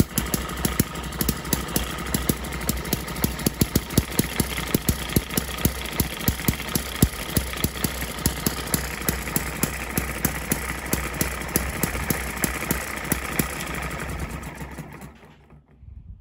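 ET6 model hit-and-miss engine, a tiny single-cylinder, running with a fast, regular beat of firing strokes, firing almost every time rather than hitting and missing. Near the end it dies away and coasts to a stop. The owner thinks a leaking water jacket is probably costing it a little compression.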